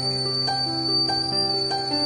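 Swiss Diamond 2.5 L stainless steel whistling kettle whistling at the boil, one steady high-pitched tone, over background music.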